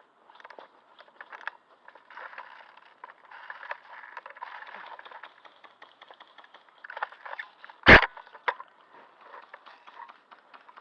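Close rustling, scraping and small clicks of handling noise, with one loud knock about eight seconds in.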